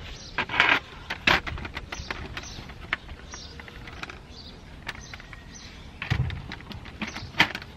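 Plastic radiator cooling-fan shroud being handled and fitted onto a radiator: a series of knocks, clicks and scrapes, loudest about half a second in, just after a second, and twice near the end.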